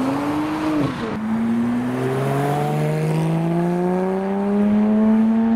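Porsche 911's flat-six pulling away under steady acceleration, its note climbing smoothly through one long gear for about four seconds. Before it, during the first second, another sports car's engine rises and falls as it drives off.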